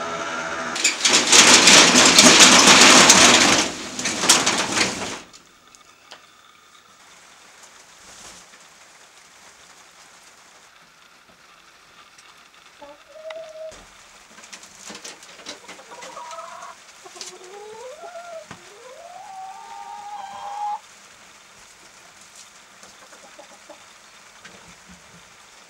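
Loud, hissing rain for about four seconds, then dropping away. Later a rooster crows, a few sliding calls ending in one long rising, held crow, among hens in a coop.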